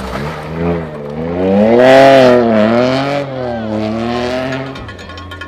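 Rally car engine revving hard and lifting off several times, its pitch rising and falling, loudest about two seconds in. The sound drops away sharply near the end.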